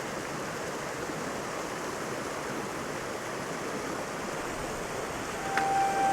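Small waterfall rushing steadily. Near the end a long, steady horn tone begins, from a distant train.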